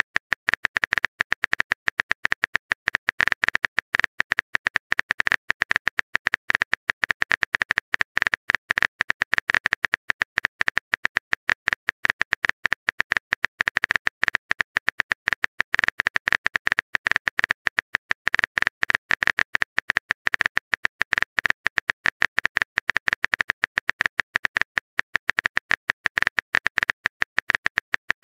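Keyboard typing clicks of a texting-story app, an unbroken rapid run of identical clicks, many a second and all equally loud, as a message is typed out character by character.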